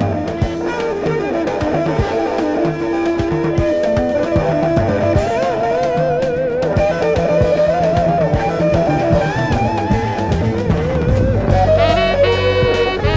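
Early-1970s rock band recording: electric lead guitar playing wavering, vibrato-laden lines over bass and drums. A horn section comes in near the end.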